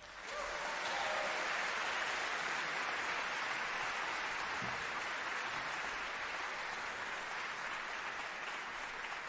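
Seated audience applauding, a dense, steady clapping that swells in within the first half second and eases slightly toward the end.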